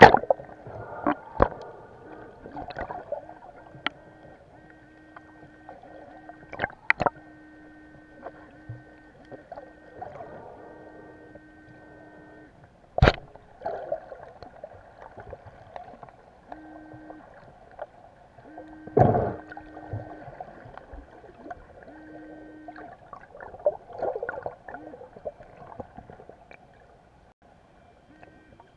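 Muffled underwater sound of a hand digging and scooping seabed sand, with water swirling and scattered knocks and clicks; the sharpest click comes about 13 seconds in and a heavier thump about 19 seconds in. A faint steady hum starts and stops in the background.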